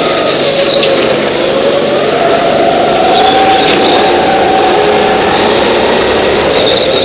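Go-kart engine running at high revs. Its pitch climbs about two seconds in, then holds with small dips as the driver comes off and back on the throttle.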